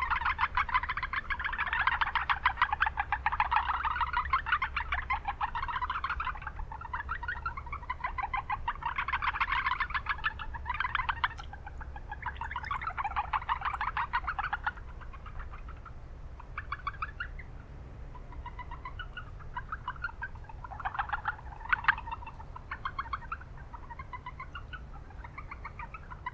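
A chorus of Japanese brown frogs (Rana japonica) calling: several males give overlapping trains of rapid pulsed notes. The calls are dense for the first few seconds and then come in scattered bouts. A steady low rumble of town noise runs underneath.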